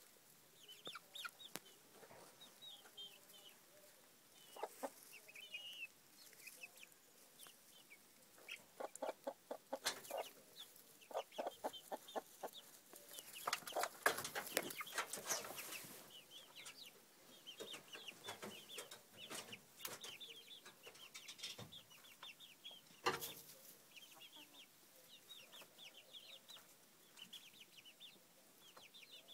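Chickens clucking and calling softly while scratching in straw and compost scraps, with rustling in the straw that is heaviest around the middle.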